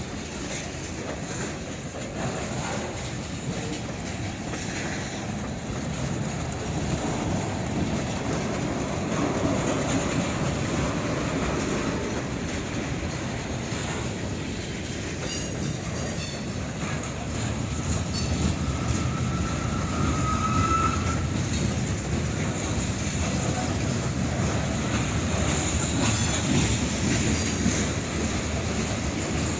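Long freight train rolling past, the steady noise of its wheels on the rails, with a brief thin rising wheel squeal about two-thirds of the way through.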